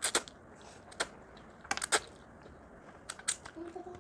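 Crab shell being cracked and pulled apart by hand: a string of short, sharp clicks and snaps.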